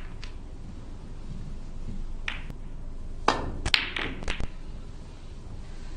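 Snooker balls clicking. A cluster of sharp knocks three to four and a half seconds in, as the cue tip strikes the cue ball and balls collide, with lighter clicks before it.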